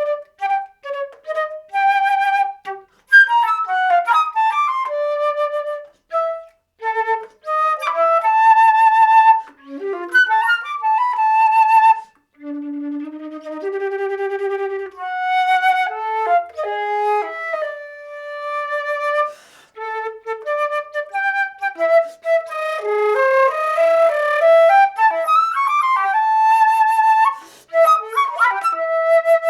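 Solo concert flute playing a contemporary piece: short, fast flurries of notes broken by brief rests, alternating with held notes, some in the low register and some high.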